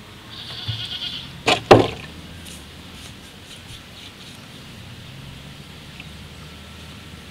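A wavering animal call for about a second, then two sharp knocks close together, the second the loudest, followed by a few faint ticks.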